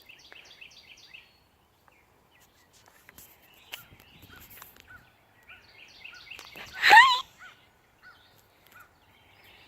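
Birds calling outdoors: a quick run of rising chirps in the first second, then scattered faint calls, and one short, loud animal call about seven seconds in.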